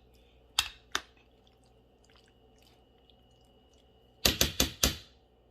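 Sharp clicks and knocks of kitchenware being handled: two single knocks about half a second and a second in, then a quick run of four or five near the end.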